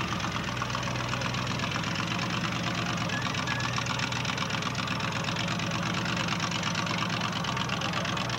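Lifted monster-truck pickup's engine, with carburettor stacks poking through the hood, idling steadily at low revs.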